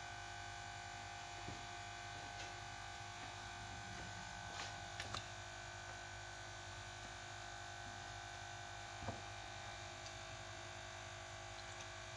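Steady electrical hum with a faint high whine over it, and a few faint taps about one and a half, four and a half, five and nine seconds in.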